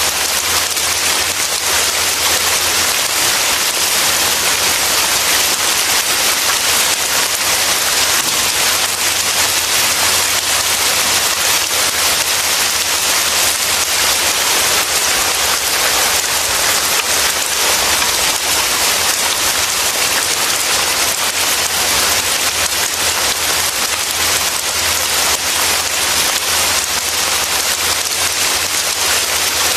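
Heavy rain falling steadily: an even, unbroken hiss with no thunder or breaks.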